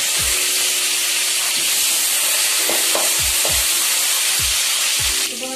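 Small onions, green chillies and curry leaves sizzling loudly in hot oil in an aluminium kadai, stirred with a metal ladle. The steady sizzle drops off suddenly near the end.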